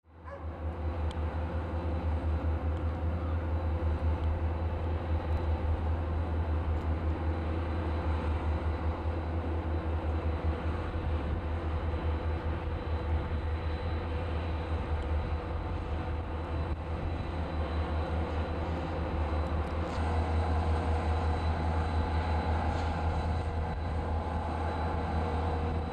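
Diesel-electric freight locomotives, three Norfolk Southern units and a leased SD40-2, running as the train moves slowly: a steady low engine drone with a faint held tone. It fades in at the start and grows a little louder about 20 seconds in.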